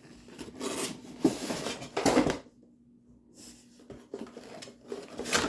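Handling noise from action figures and their plastic and cardboard packaging: a few brief rustles and knocks, broken by a short silent gap in the middle.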